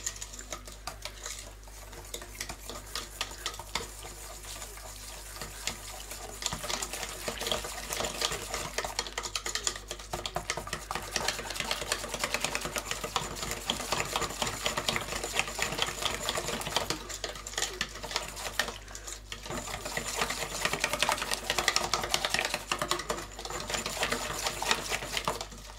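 Wire whisk beating thin cornbread batter in a stainless-steel mixing bowl: a fast, steady run of clicks and scrapes as the wires hit the bowl and stir the batter smooth.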